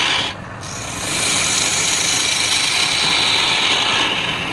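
Wood being worked on a turning lathe: a steady scraping hiss of tool or abrasive against the spinning workpiece. It dips briefly about half a second in, then resumes.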